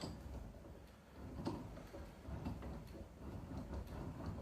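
Faint, scattered clicks and taps from the parts of a bench vise being handled and tried during disassembly, over a low steady hum.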